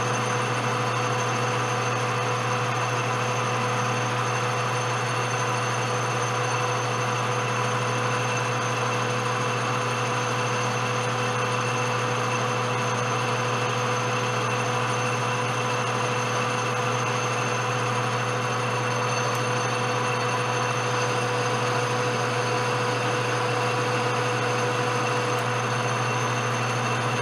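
Metal lathe running steadily, its drive giving a constant low hum with a few steady whining tones, while the spinning chuck turns bar stock against a hand-ground high-speed steel tool bit.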